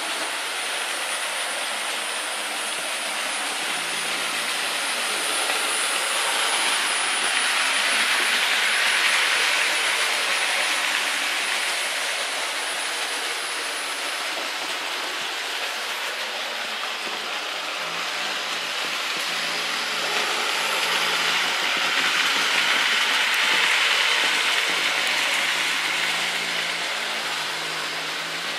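Hornby OO gauge model trains running on the layout's track: a steady rush of metal wheels on rail and small electric motors. It swells twice, about nine seconds in and again about twenty-three seconds in, as trains pass close. A faint high whine sounds through the first half.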